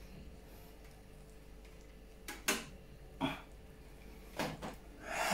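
Banana being bitten and eaten without hands: quiet at first, then four short, sharp mouth and eating sounds in the second half, the last the loudest.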